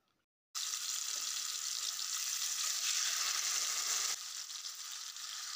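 Marinated chicken legs sizzling as they fry in hot oil in a frying pan. The sizzle starts abruptly about half a second in and eases slightly about four seconds in.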